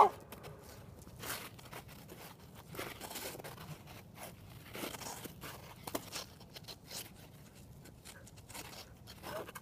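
Ice skate blades scraping and crunching on frozen pond ice in short, scattered strokes, with a dog's bark right at the start.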